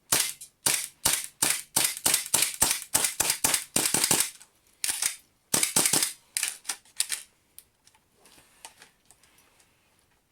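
WE gas blowback Colt 1911 airsoft pistol in a carbine kit firing a rapid string of sharp cracks, about three a second, with a short break about four seconds in; the shots stop about seven seconds in, leaving only faint handling clicks.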